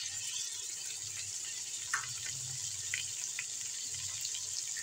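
Chopped tomatoes sizzling in hot ghee in a cooking pot: a steady hiss with a few sharp crackles around the middle.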